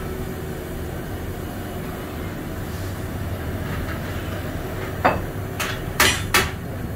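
A steady low hum, then from about five seconds in four sharp knocks on metal, each a fraction of a second apart.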